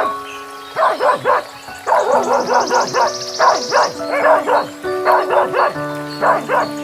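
Rapid bursts of short animal calls, three or four quick calls to a burst, over background music with held notes.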